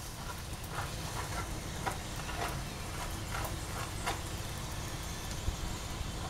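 Naan frying in a nonstick pan over a gas flame: faint steady sizzling over a low steady rumble, with several brief soft rubbing sounds as garlic oil is spread over the bread by hand.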